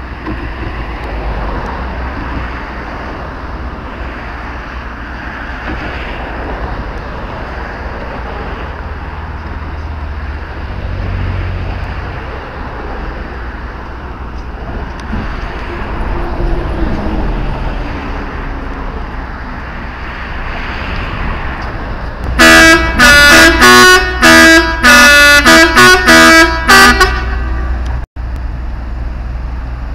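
A steady low rumble with outdoor background noise. About 22 seconds in comes a quick run of about ten loud, distorting blasts from a bank of boat horns mounted on a river ship's mast, several pitches sounding together in short on-off bursts for about four seconds.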